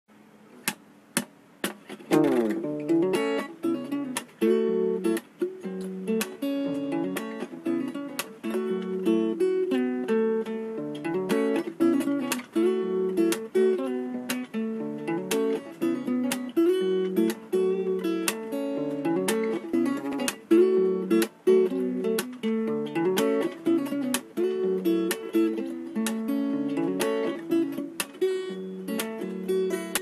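Steel-string acoustic guitar with a capo, in standard EADGBE tuning, played as a continuous run of plucked chord notes. A few sharp clicks come first, and the playing starts about two seconds in.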